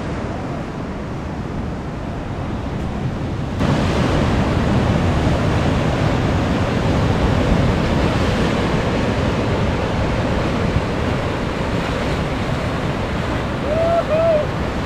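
Ocean surf breaking and washing over the boulders of a rock jetty, a steady rushing roar with wind buffeting the microphone. It gets abruptly louder a few seconds in.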